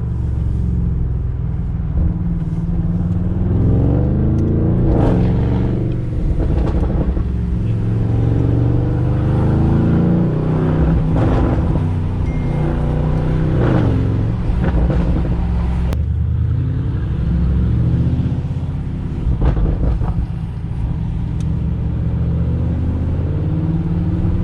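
Lamborghini Urus twin-turbo V8 through a Capristo straight-pipe exhaust, accelerating hard in repeated pulls, the engine note rising again and again through the gears. Sharp exhaust crackles and pops come several times as it lets off.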